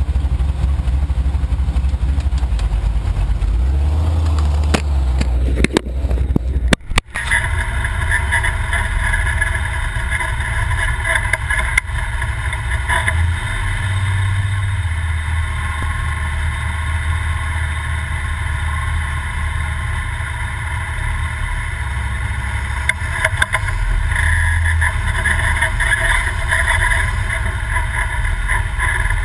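Class 2000 Toyota desert race truck running, its engine and drivetrain giving a loud steady rumble heard onboard, with a few sharp clicks and a brief dropout about seven seconds in.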